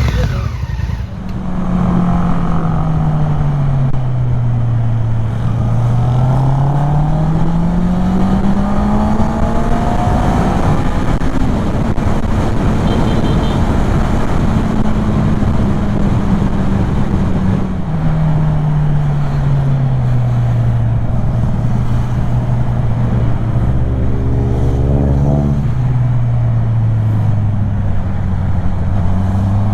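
Kymco Xciting 400 scooter's single-cylinder engine running under way. Its pitch falls as the scooter slows, rises as it speeds up, holds steady for a while, then falls and rises again. Steady wind and road rush runs underneath.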